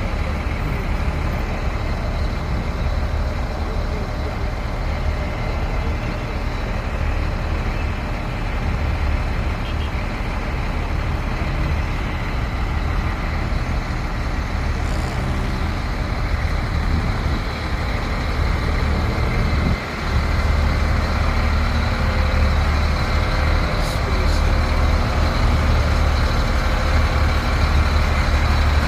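Heavy diesel construction machinery engine running with a steady low rumble, briefly dropping about twenty seconds in and then running louder.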